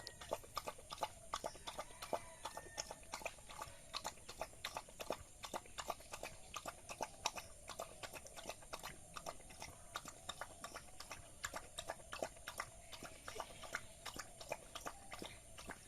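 A dog eating rice: a quick, irregular run of wet chewing and smacking clicks, several a second.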